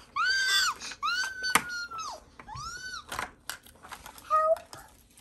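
A young girl's high-pitched strained squeals, four in a row, each rising and falling in pitch, as she pulls hard at a plastic capsule. A sharp click comes about one and a half seconds in and another near three seconds.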